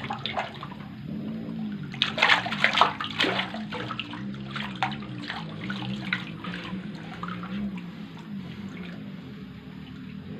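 Big catfish thrashing and splashing in shallow water. The splashes are loudest about two seconds in and thin out toward the end, over a steady low hum.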